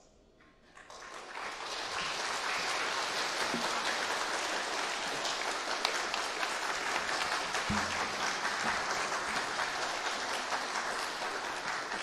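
Audience applauding. The clapping starts about a second in, swells quickly and then holds steady.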